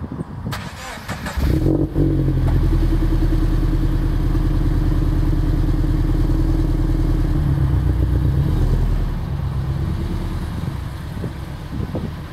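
Subaru BRZ's flat-four boxer engine, breathing through a Borla unequal-length header, HKS dual resonated front pipe and Perrin 2.5-inch cat-back exhaust. It comes up sharply about two seconds in and runs loud and steady, then eases off and drops in level from about nine seconds as the car pulls away.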